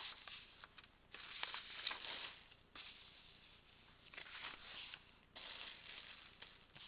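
Paper pages of a book rustling as they are handled and turned, in four or five short rustling spells with a few small clicks.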